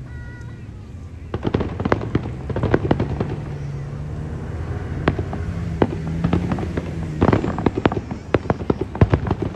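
Fireworks going off: after about a second of low hum, a dense run of sharp crackling pops and bangs begins and keeps on, thickest around two seconds before the end and again at the very end.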